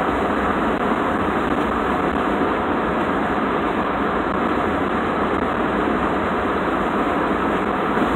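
Steady road and engine noise heard inside the cab of a small truck driving along a highway while towing a camper.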